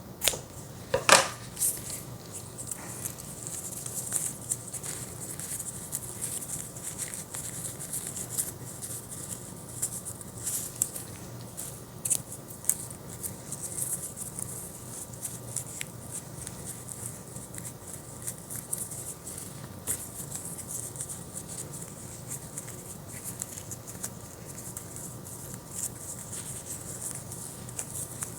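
Close handling noise of ribbon and fabric being worked by hand while a ribbon is tied around the end of a homemade cat toy: steady rustling with many small irregular ticks, and one sharp click about a second in.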